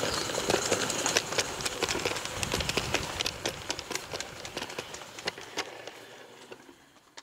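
A train of loaded 16 mm-scale model mineral wagons rolling past, their wheels clicking irregularly on the track; the sound fades steadily and dies out at the end.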